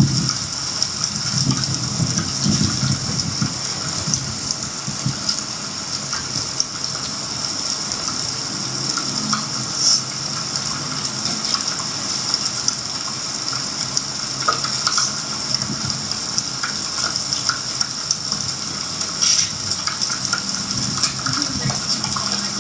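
Heavy rain pouring down: a steady hiss with scattered sharp drop hits.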